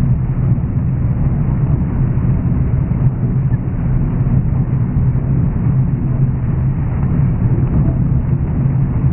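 John Deere 9500 combine's diesel engine and threshing machinery running steadily under load while harvesting corn, a loud even drone with a strong low hum.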